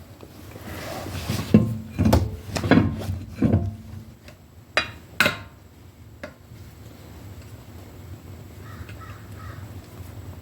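Several thuds and knocks as a car wheel and tools are handled, then two sharp metallic clicks about five seconds in; quieter after that.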